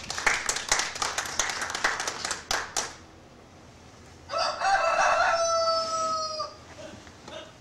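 Chickens clucking for about three seconds, then a rooster crowing once, a single long call of about two seconds.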